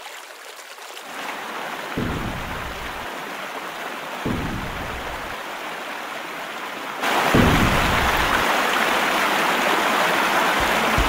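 Rushing whitewater of river rapids, a steady roar of water with a few deep surges, getting markedly louder about seven seconds in as the waves crash closer. A music beat starts right at the end.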